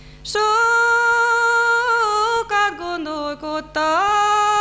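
A young woman singing an unaccompanied Hungarian song in a clear voice. She holds a long note, drops through a lower, ornamented passage with short breaks, then rises again to another long held note.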